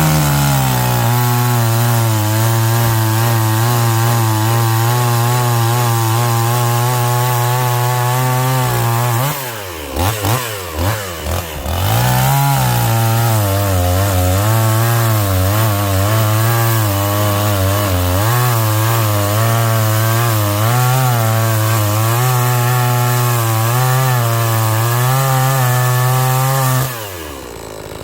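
Two-stroke chainsaw cutting firewood at full throttle, its engine pitch wavering under load. About nine seconds in it drops off the cut, is blipped a few times, then goes back into the wood, and it drops back near the end.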